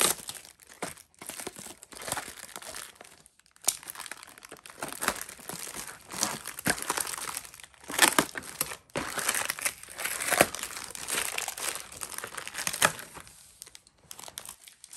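Clear plastic bags and wrap crinkling and rustling in irregular bursts as they are handled and pulled out of a cardboard box, with short pauses.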